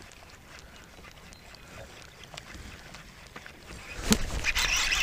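Quiet outdoor ambience with faint scattered ticks. About four seconds in there is a sudden knock, then loud rustling as grass and brush rub against the chest-mounted camera.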